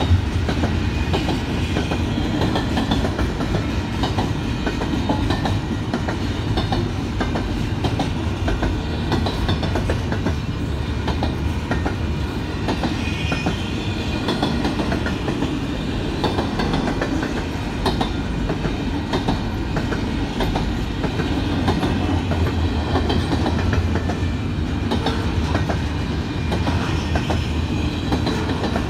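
Union Pacific intermodal freight train's container cars rolling steadily past a grade crossing: a continuous low rumble of wheels on rail, with a running patter of clicks and clacks from the wheels.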